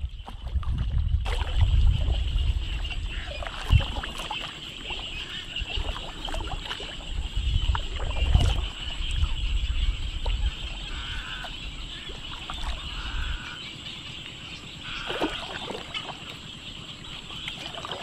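Waterside wildlife ambience: a steady high insect chirring, with croaking calls now and then. A low rumble on the microphone runs under it and stops about three-quarters of the way through.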